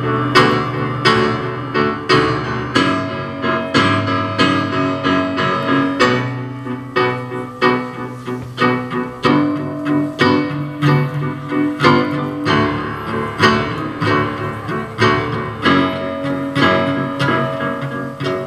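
Live chamber music: a grand piano plays an evenly paced figure of repeated notes, about two a second, while a cello and a violin hold longer notes beneath and around it.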